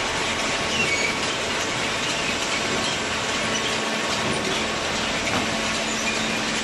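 Industrial cardboard shredding and baling machinery running: a steady, dense mechanical clatter with brief high squeaks now and then.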